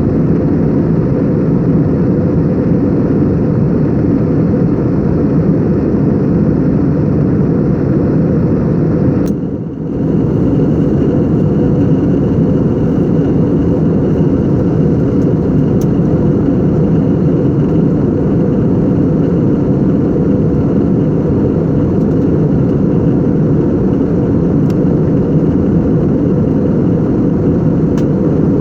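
Airbus A321neo jet engines during takeoff and climb, a loud steady rumble that dips briefly about nine seconds in.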